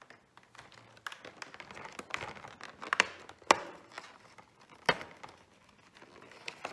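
Cardboard advent calendar door being pried open and a small foil-wrapped chocolate pulled out and handled: crinkling with a few sharp clicks, the loudest about three and a half and five seconds in.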